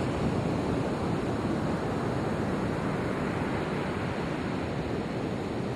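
Ocean surf washing onto a sandy beach, a steady rushing with wind buffeting the microphone.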